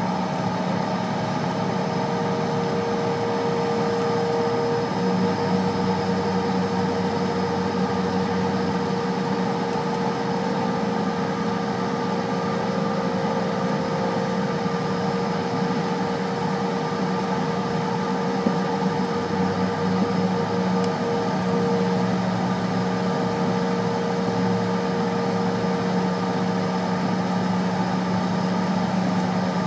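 Jet engines of a regional jet at idle heard inside the cabin: a steady hum with a steady whine running through it.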